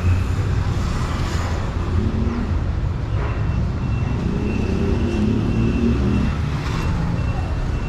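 City road traffic: cars and other vehicles passing with a steady low rumble. A thin, steady high whine joins about three seconds in.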